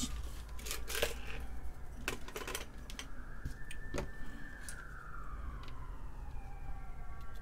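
Police siren wailing, its pitch rising slowly then falling over several seconds, with scattered light clicks of small parts and hand tools being picked up and set down on the workbench.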